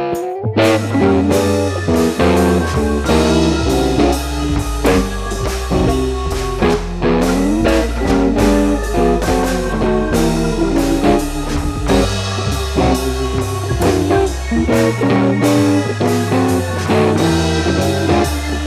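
Background instrumental music: a guitar melody with bends over a steady bass line and drums, in a bluesy rock style. It comes in fully about half a second in.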